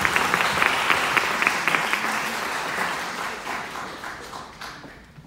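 Audience applauding, with a few sharp claps close by in the first couple of seconds; the applause dies away over the last two seconds.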